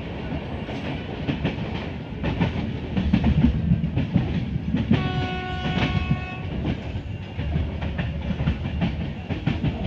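Passenger train running, its wheels clattering over the rail joints with a steady rumble. Midway a train horn sounds once for about a second and a half.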